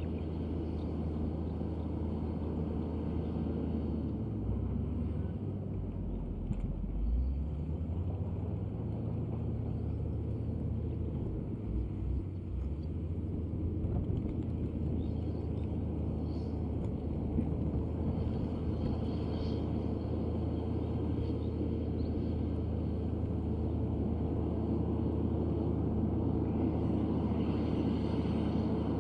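Komatsu D155A crawler bulldozer's diesel engine running steadily at work, a low rumble whose deepest note shifts a few times in the first half.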